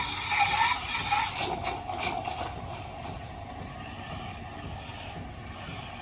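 Steam wand of a De'Longhi Magnifica S Smart espresso machine hissing into milk in a stainless-steel jug, heating and frothing it. A wavering squeal and a few sharp clicks come in the first two seconds or so, then a steadier hiss.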